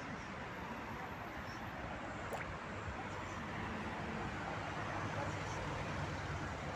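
Steady outdoor background noise, an even hiss with a low rumble, with one faint click about two seconds in.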